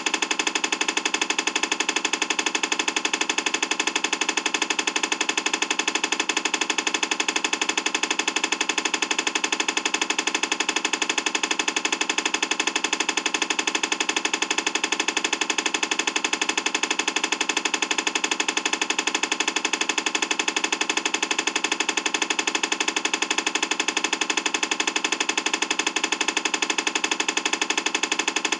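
Sound effect of a giant engine running: a steady, fast, even pulsing that never speeds up or slows down, with almost no deep bass.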